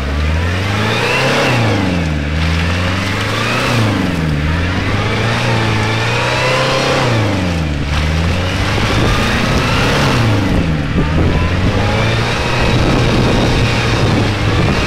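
Jeep Cherokee engine revving up and down over and over, about every two seconds, as it spins its wheels stuck in deep mud. From about ten seconds in the engine is held at steady high revs while the wheels churn and throw mud.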